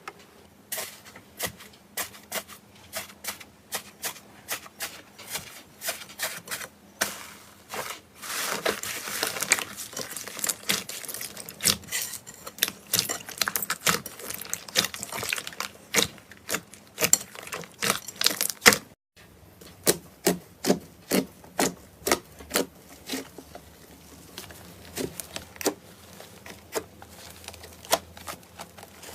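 Slime being squeezed and worked by hand, giving off sharp popping clicks and crackles at about two or three a second, with a denser crackling stretch about eight seconds in.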